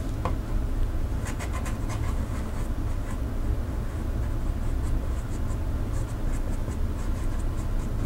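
Flat watercolor brush stroking across damp watercolor paper, faint scratchy strokes coming in two short clusters over a steady low hum.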